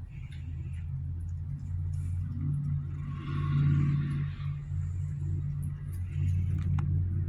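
A low, steady rumbling hum that runs on with brief breaks and swells louder, with some hiss, from about three seconds in for a second or so.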